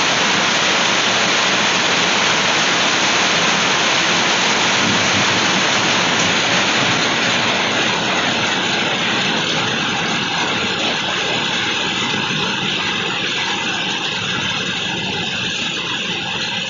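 Heavy rain falling as a dense, even hiss that eases a little after about seven seconds.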